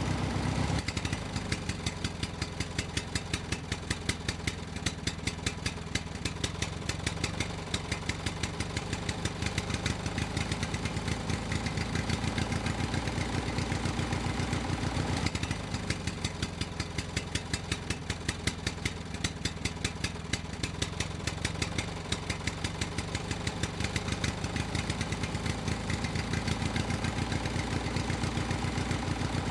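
Tractor engine idling, a steady run with an even, regular chug.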